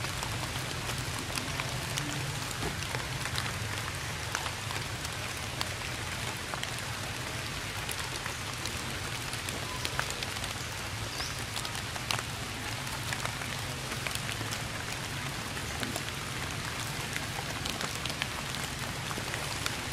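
Steady rain falling on tree foliage, an even patter with many scattered sharp drop ticks.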